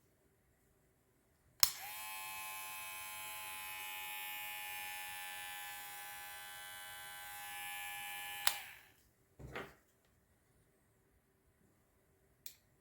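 Kemei KM-2293 hair trimmer switched on with a click, its motor and blade running with a steady buzz for about seven seconds, then switched off with a click. About a second later comes a short dull knock, and a faint click near the end.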